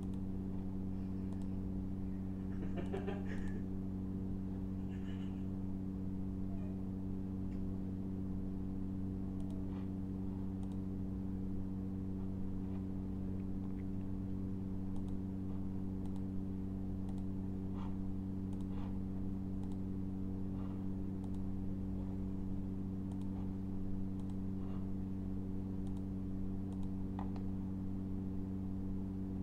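Steady low electrical hum with scattered faint computer mouse clicks as buttons and tabs are clicked in a program.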